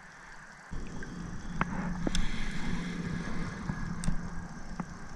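A spinning fishing reel and rod being handled close to the microphone: a low rumble with a faint steady hum starting about a second in, and a few light clicks.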